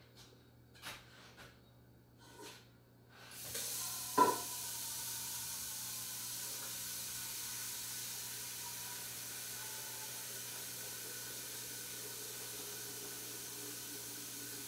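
Steam hissing steadily from a stovetop pressure canner's vent, starting about three and a half seconds in, with a single sharp ringing clink just after the hiss begins. A few light knocks come before it.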